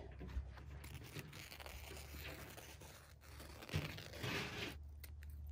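Woven weed-block landscape fabric being trimmed at a corner edge: faint tearing and crinkling, a little louder about four seconds in.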